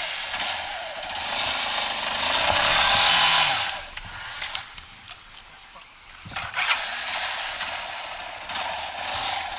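Dirt bike's single-cylinder engine revving hard, the revs climbing to a peak about three seconds in, dropping back, then rising again about six seconds in.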